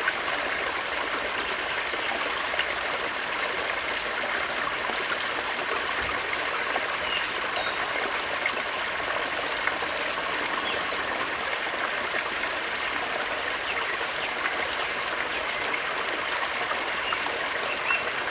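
Forest stream flowing steadily, a constant rush and trickle of water.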